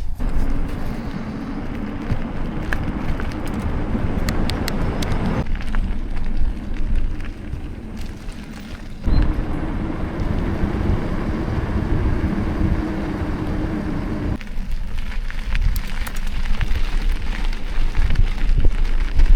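Steady rumbling and crackling noise with scattered clicks and rattles, the kind made by wind and movement on the microphone while travelling. It eases off for a few seconds twice.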